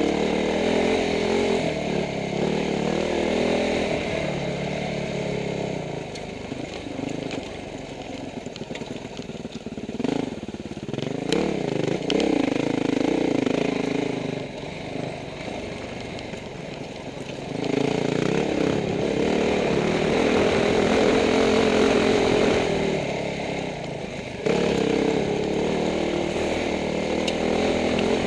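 Rally motorcycle engine under way on gravel single track, revving up and easing off with the throttle, heard from on the bike. Spells of hard throttle alternate with quieter lulls, around a quarter of the way in and again just past the halfway point.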